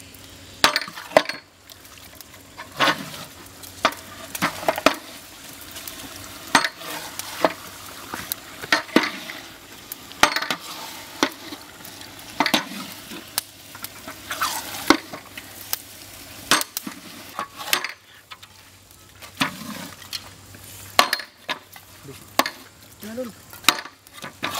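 A long-handled metal spatula stirring meat curry in a large aluminium cooking pot: scrapes and knocks of metal on the pot every second or two, over the sizzle of the frying curry.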